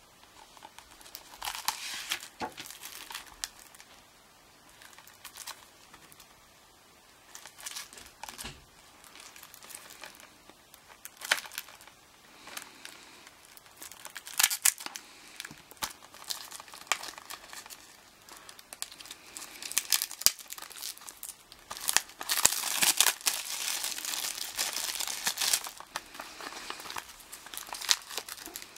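Plastic shrink-wrap on a Blu-ray case crinkling and tearing as it is cut with a knife and picked and pulled at by hand. It comes in short, scattered bursts, with a longer, louder stretch of crinkling about three quarters of the way through.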